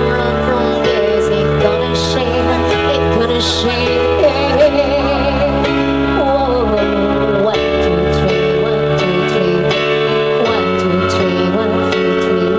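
Live musette dance band playing a song with drums, keyboard and bass, and a sung vocal line over it.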